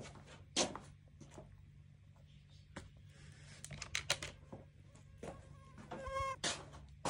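A cat eating from a plastic bowl: irregular crunching clicks, a few at a time, over a steady low hum. A brief squeaky tone sounds about six seconds in.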